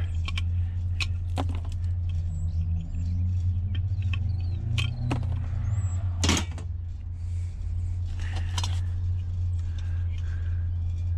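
Vehicle engine idling steadily, with scattered clicks and clatter of scrap being handled. One loud knock comes about six seconds in.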